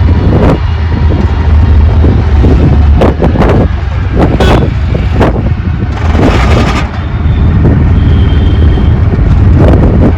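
Auto rickshaw riding along a street, heard from on board: the engine's steady low drone under road and wind noise, broken every second or two by short gusts or jolts.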